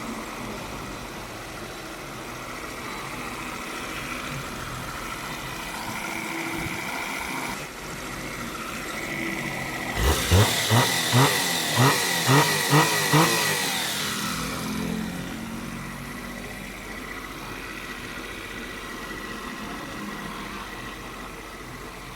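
Perodua Kancil's small three-cylinder engine running on a test run after a top overhaul. About ten seconds in it is revved in a quick run of about eight sharp throttle blips, then settles back to a steady run.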